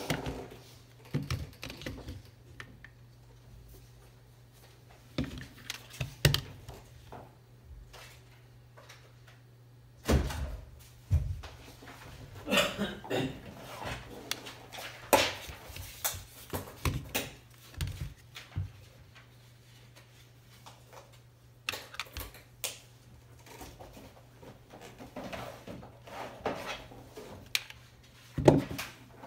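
Handling noise from two polymer-framed 9mm pistols, a Tara TM-9 and a CZ P-10 F, on a hard tabletop: irregular clicks, knocks and rubs as they are picked up, turned over and set down, a few knocks sharper than the rest. A steady low hum sits underneath.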